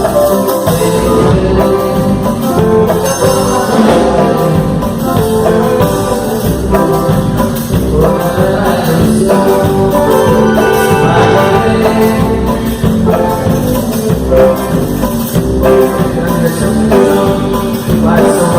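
A live band playing a loud, steady-beat number with drums and percussion during a sound check.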